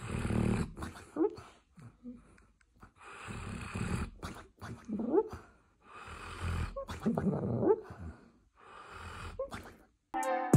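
A yellow Labrador retriever snoring and snuffling in its sleep, with a noisy breath about every two seconds. Several breaths end in a short rising whine.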